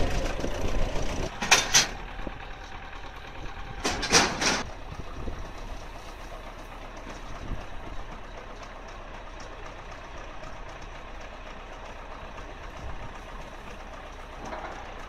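Tractor engine idling steadily, with a few short louder sounds in the first five seconds.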